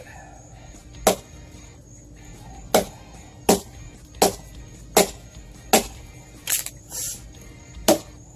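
Hand-forged Husqvarna hatchet chopping into wood: about eight sharp strikes, most roughly three-quarters of a second apart, beginning about a second in.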